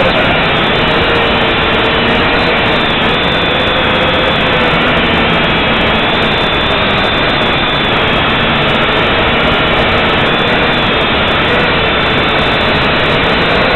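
JJRC H8 quadcopter's electric motors and propellers, heard close up from its onboard camera in flight: a loud, steady buzzing whine whose pitch wavers slowly up and down as the throttle changes.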